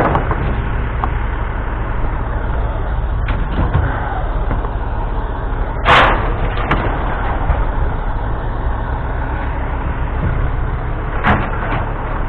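A vehicle engine running with a steady low rumble. Three sharp knocks come through it: one at the start, one about six seconds in and one near the end.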